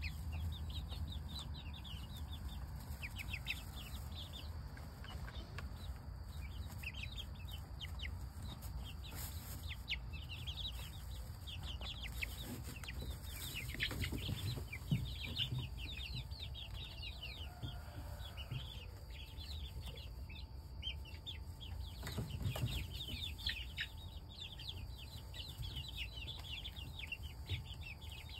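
A flock of young chickens peeping continuously, many short, high, falling calls overlapping, over a low steady rumble.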